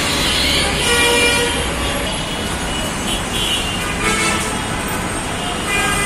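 Dense, jammed city road traffic: a steady rumble of idling and creeping engines with vehicle horns honking again and again, several sounding at once or in quick succession.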